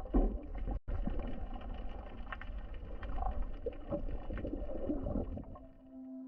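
Muffled underwater ambience through a camera housing: a low rumble with scattered clicks and crackles. Music with steady plucked tones comes in near the end.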